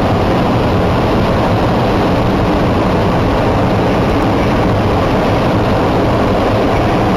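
Hot air balloon's propane burner firing in a long, loud, steady blast.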